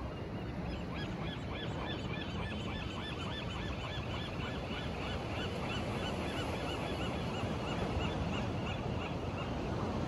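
A flock of geese honking, many short calls in quick succession over a steady rushing background; the calls die away near the end.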